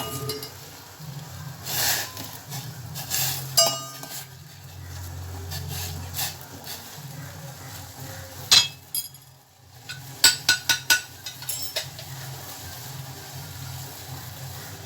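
Metal kitchen utensils clinking and knocking against cooking pots while the rasam is tended on the stove. The knocks are scattered, with a quick cluster of sharp clinks about ten seconds in, over a steady low hum.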